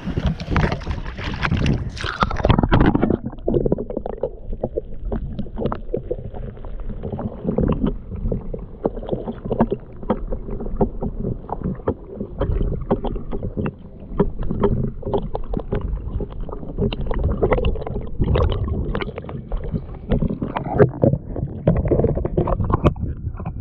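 Gale-force wind buffeting the microphone on a small boat, a loud, gusty, uneven rumble with water slapping at the hull.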